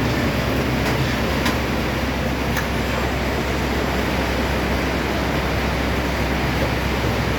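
Hop baler and its reversing conveyor belt running: a steady low hum and rumble of machinery, with a few faint clicks in the first three seconds.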